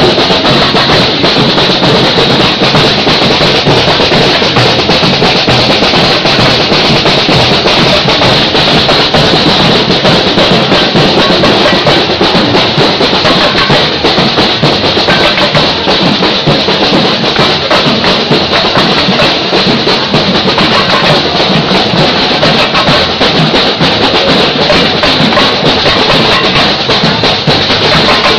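A batucada drum ensemble playing loud, dense, continuous percussion, with shakers and other hand percussion over the drums.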